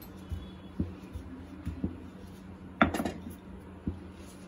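Wooden rolling pin working dough on a granite countertop: a few soft knocks as it is pressed and turned, then a louder clack about three seconds in as the pin is set down on the stone.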